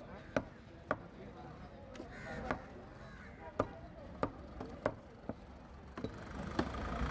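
A heavy fish-cutting knife chopping through mackerel tuna onto a wooden block. There are about nine sharp chops, spaced unevenly.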